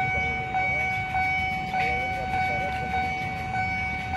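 Railway level-crossing warning bell ringing in a steady repeating rhythm, about one and a half strikes a second, each strike ringing on in a held tone, over a low rumble.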